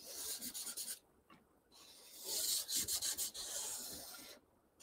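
Black marker drawing on a large paper easel pad. There is one short stroke in the first second, then a longer stroke from about two seconds in until shortly before the end.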